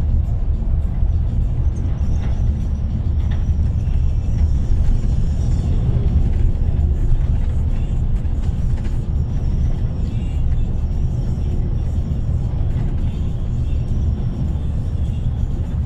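Steady low rumble of engine and tyre noise inside the cabin of a vehicle moving at road speed.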